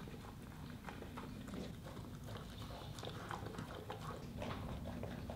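A goldendoodle eating dry kibble from a plastic slow-feeder bowl: irregular clicks and crunches as the kibble rattles in the bowl and is chewed.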